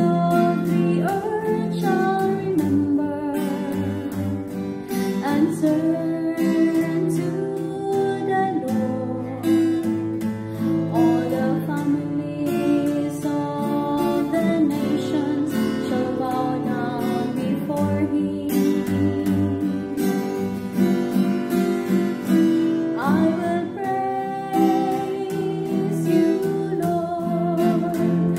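A singer sings a verse of a responsorial psalm with vibrato over guitar chord accompaniment.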